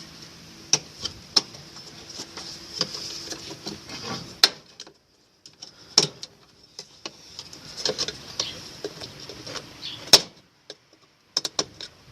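Scattered clicks and knocks of parts being handled and hooked into place while a washing machine's spin mechanism is reassembled by hand, the loudest knock about ten seconds in.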